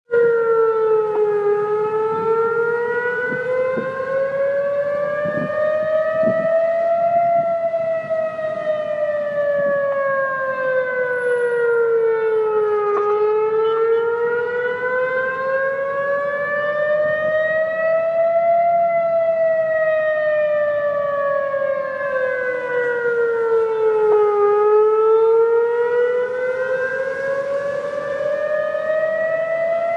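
Emergency siren wailing in a slow, continuous cycle: its pitch rises for about five and a half seconds, then falls for as long, three times over.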